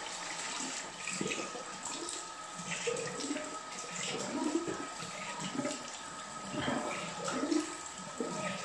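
Water running steadily from a bathroom sink tap, with irregular splashing as soap lather is rinsed off a face by hand. A faint steady whistle sits over the running water.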